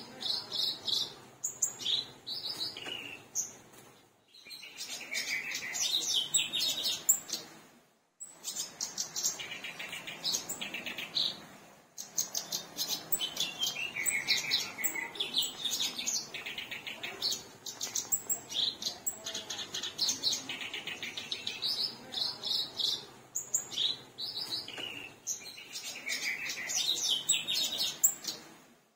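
Black-browed reed warbler singing: a fast, scratchy, chattering song in dense phrases, broken by a few short pauses in the first half.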